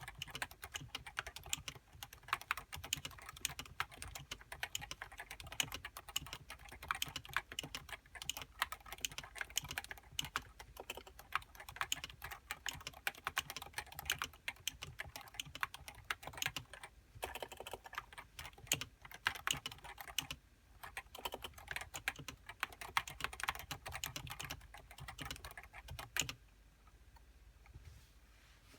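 Typing on a Topre Realforce 87U keyboard with variable-weight Topre electrostatic capacitive switches and HiPro keycaps: a fast, continuous stream of keystrokes with a couple of short pauses. The typing stops about 26 seconds in.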